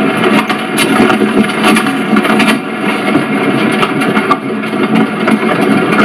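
Horse-drawn carriage in motion: a dense, steady rattle and clatter with scattered sharp knocks.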